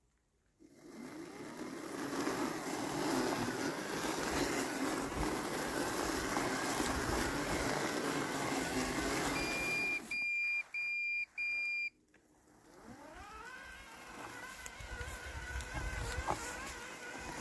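Landxcape LX790 robotic mower cutting through tall wet weeds, its blade motor running steadily. About ten seconds in the motor drops out while the mower gives four short, high beeps, then the blade motor spins back up with a rising whine and runs on steadily.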